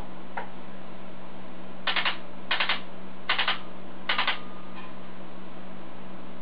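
Tippmann US Army Alpha Black electronic paintball marker firing four quick bursts of about three shots each, sharp snaps in rapid succession with short pauses between bursts.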